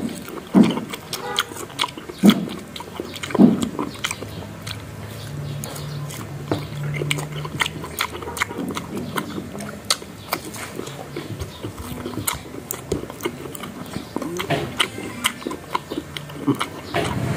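Close-up eating sounds of ripe mango: wet lip smacks, sucking and slurping at the juicy flesh, with a few short hummed 'mm' sounds in the first few seconds.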